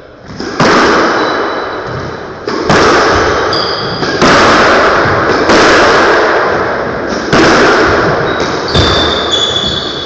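Squash ball being struck by rackets and hitting the court walls in a rally: about six sharp cracks, each with a long echoing decay. Shoes squeak briefly on the wooden floor between hits, most near the end.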